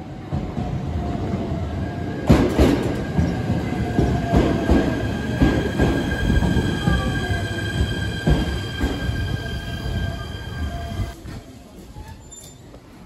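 JR East E129 series electric train pulling into the station and braking to a stop: wheels knocking over rail joints, a steady high squeal and a lower whine that falls in pitch as it slows. The sound dies down about eleven seconds in as the train halts.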